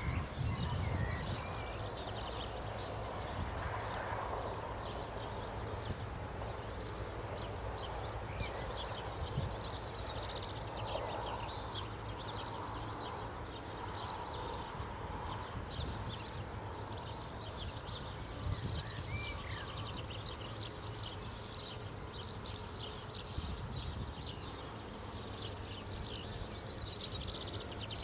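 Outdoor ambience of small birds chirping and singing, with occasional short whistled notes, over a steady low rumble.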